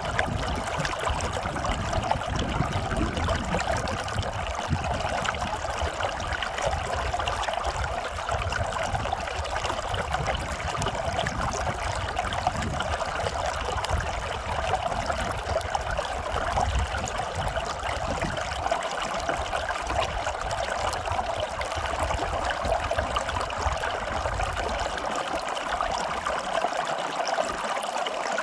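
Running water flowing steadily with an even trickling rush. A low rumble underneath drops away near the end.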